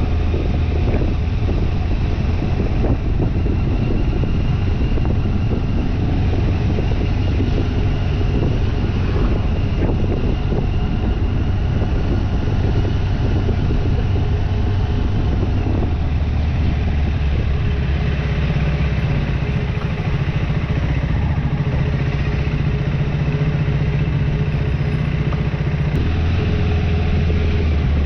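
Motorcycle engine running steadily, its low hum dense and continuous; the engine note shifts about halfway through and shifts again near the end.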